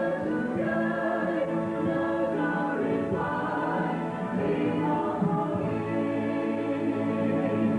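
A choir singing, several voices holding sustained chords.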